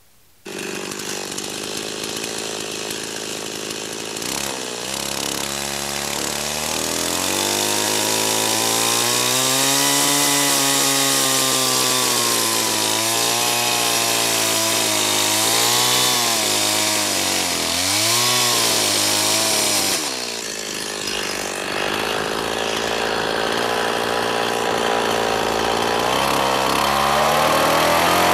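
Stihl two-stroke chainsaw cutting into a standing Douglas fir trunk, its engine pitch rising and dipping again and again as the chain bites into the wood. About twenty seconds in the sound drops briefly, then the saw pulls up and climbs steadily near the end.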